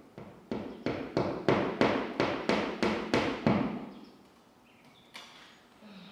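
Hammer driving a fine finishing nail through a carpet tile into the wall: about ten quick blows, roughly three a second, over about three seconds, growing louder. One fainter knock follows near the end.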